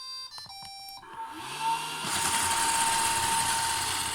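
iRobot Roomba Red 4100 robot vacuum plays a short electronic start-up tune. About a second in, its brush and vacuum motors spin up and settle into a steady whirring run.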